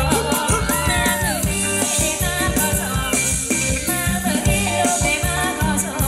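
Thai ramwong dance music from a live band: a steady drum and bass beat under a melody line that slides in pitch in the first second or so.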